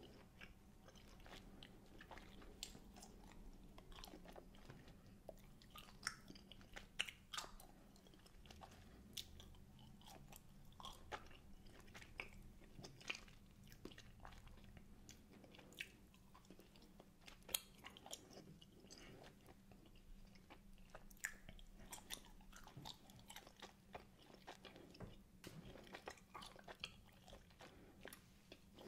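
Close-miked chewing of wine gums: irregular wet mouth clicks and smacks as the chewy gummy sweets are worked between the teeth.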